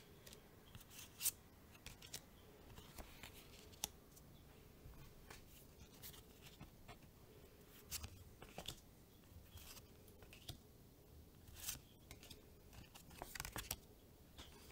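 Magic: The Gathering trading cards handled and flipped through by hand: scattered short, crisp slides and flicks of card stock against card stock, with a sharper snap just over a second in.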